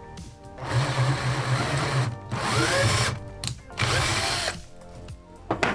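Electric drill boring into a softwood block with a wood bit, running in several bursts with short pauses, its motor speed rising and falling. A sharp knock near the end.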